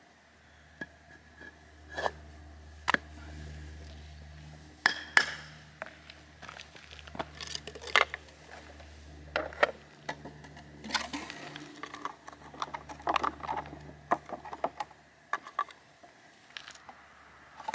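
Scattered knocks, taps and scrapes of a hollow vinyl post sleeve being handled and slid down over a wooden post.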